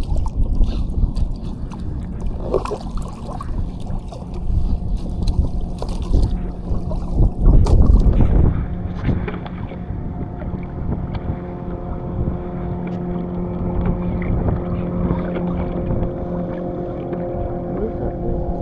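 Wind buffeting the microphone and water sloshing around a kayak, with scattered knocks in the first half. About halfway through, a steady hum with several fixed pitches joins the noise and holds on.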